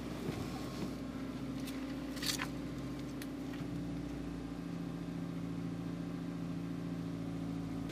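Car engine idling steadily, heard from inside the cabin with the driver's door open, its hum shifting slightly in pitch about halfway through. A couple of faint clicks about two seconds in.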